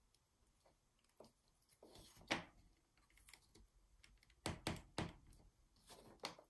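Faint clicks and taps of small wooden kit parts knocking together as they are handled and fitted, with the sharpest about two seconds in and a quick group of three just past the middle.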